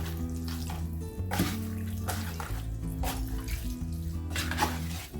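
Background music with held, slowly changing bass notes, over soft wet squelching of raw chicken pieces being mixed by hand with chilli powder, turmeric and salt for the marinade.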